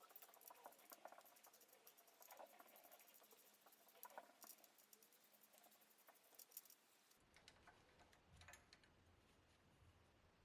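Near silence with faint, scattered light clicks and taps; the background tone changes abruptly about seven seconds in.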